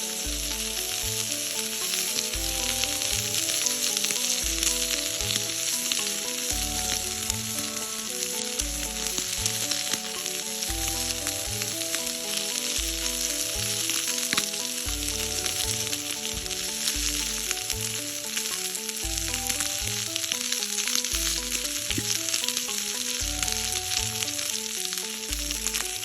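Food sizzling steadily as it fries in a pan, with background music with a regular bass beat underneath.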